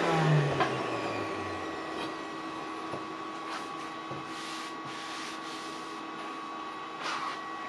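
Electric circular saw motor winding down after being switched off, its pitch falling steadily over the first second and a half. A steady machine whine with a few short airy hisses carries on underneath.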